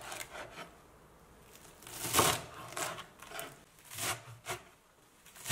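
Kitchen knife slicing through bunched fresh coriander stems on a wooden cutting board, cutting them into short lengths. Each stroke is a crisp cut ending in a knock of the blade on the board, several at an uneven pace, the loudest about two seconds in.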